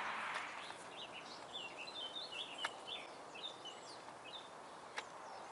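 Faint outdoor bird song: a quick run of short, high chirping notes, with a few sharp clicks, one about halfway and one near the end.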